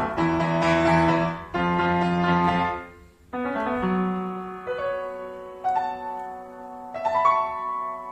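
Solo piano music: slow, held chords, with a short break about three seconds in, then single chords struck about a second apart.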